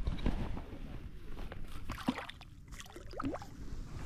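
Lake water sloshing and splashing in uneven strokes, over a low rumble.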